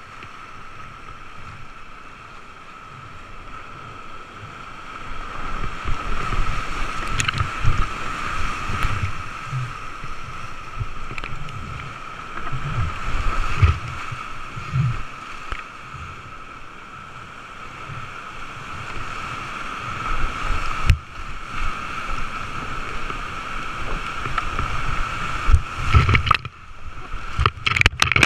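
Rushing creek whitewater heard from a GoPro on a paddling kayaker, with water buffeting the camera in irregular low thumps. It grows louder about five seconds in as the boat runs into the rapid, and a few sharp knocks come near the end.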